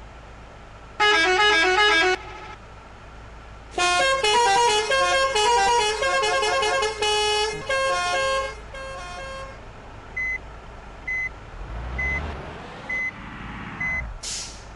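Bus 'Basuri' telolet horns, multi-tone air horns playing a quick melody about a second in, then a longer tune for about five seconds. After it comes a short beep about once a second under a vehicle engine rising and falling, and a brief hiss near the end.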